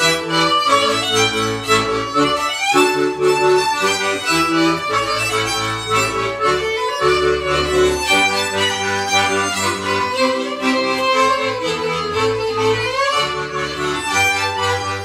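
Small folk band playing a lively Slovak folk dance tune: a fast violin melody over chords and a bass line that changes about once a second.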